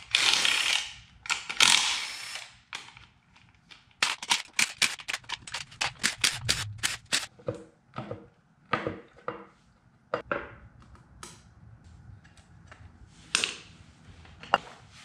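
A cordless driver runs in two short bursts, backing out the clutch-cover bolts on a Suzuki SV650 V-twin engine. A quick run of sharp metallic clicks follows, about five a second, then a few single knocks as the cover is worked off.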